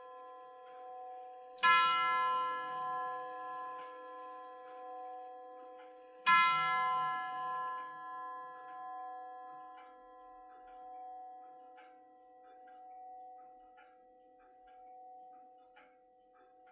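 Herschede grandfather clock's chime tube struck twice by its hammer, about four and a half seconds apart, consistent with the hour being counted. Each strike rings out in a long, slowly fading tone with many overtones. The clock's movement ticks faintly underneath.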